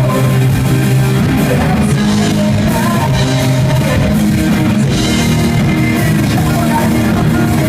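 Rock band playing live: electric guitars, bass and drum kit, with a singer.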